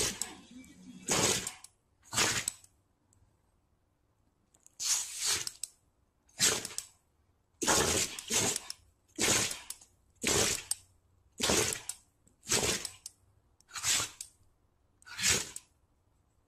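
A dog sneezing again and again: about a dozen short, hissy sneezes roughly a second apart, with a pause of about two seconds after the first three.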